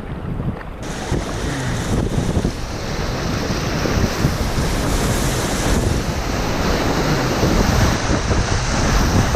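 Rushing whitewater of a river rapid, a steady roar that grows gradually louder as the kayak approaches, with wind buffeting the microphone.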